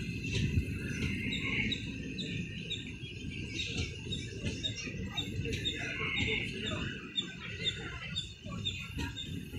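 Indian Railways passenger coaches rolling past a station platform with a steady low rumble. From about three seconds in, a bird repeats a short high chirp about two or three times a second.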